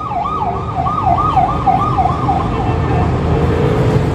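Emergency vehicle siren in a fast yelp, its pitch rising and falling about three times a second, fading out about three seconds in, over a steady rumble of city traffic.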